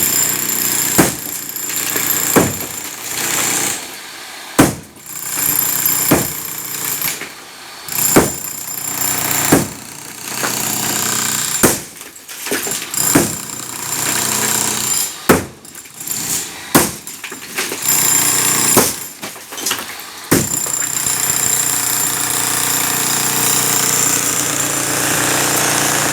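Electric demolition breaker hammering concrete in a series of short runs, each starting abruptly, then running without a break from about 20 seconds in.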